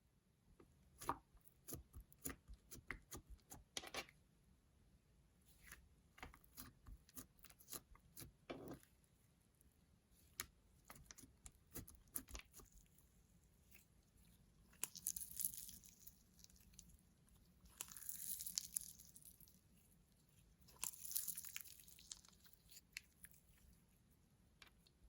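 Clear slime being mixed and stretched by hand: many quick, faint sticky clicks and pops, then three longer crackly stretches in the second half.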